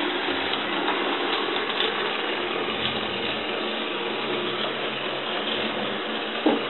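HO-scale model diesel locomotive running on sectional track with passenger cars: a steady mechanical whirr and rattle of its motor, gearing and wheels on the rails. There is a short thump near the end.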